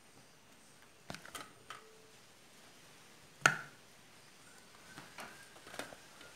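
A few light clicks and knocks of food handling: a spoon working a filling in a plastic bowl and filled bread rolls being set down in a steel baking tray. The sharpest knock comes about three and a half seconds in, with a cluster of lighter taps near the end.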